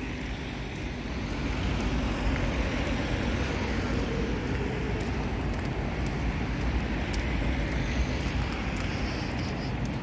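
Steady road traffic noise from cars driving by, with a low rumble underneath. It grows a little louder about a second and a half in.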